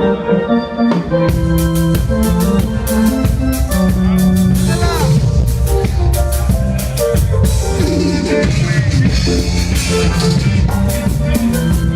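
Live cumbia band playing: held keyboard chords, then drum kit and percussion come in about a second in and the full band plays on with a steady beat.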